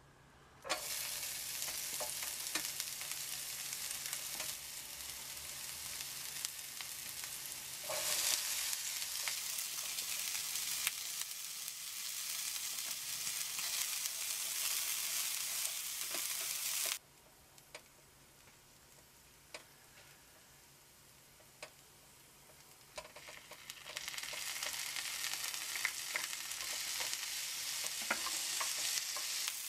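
Diced onion, red bell pepper and tomato sizzling in hot olive oil in a frying pan while being stirred with a wooden spatula. The sizzle starts suddenly about a second in as the onions hit the oil. It cuts off about halfway through, leaving only a few light clicks, then builds back up for the last several seconds.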